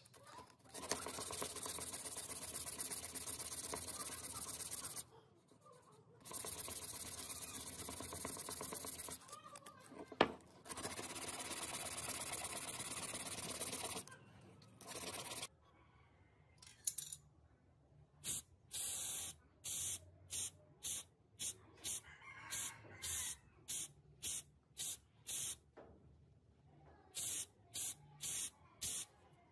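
Sanding on the cast-iron body of a breast drill: a steady scratchy rasp that pauses twice briefly and stops about 14 s in. Then paint sprayed onto the hanging part in short hissing bursts, about two a second, with a short break near the end.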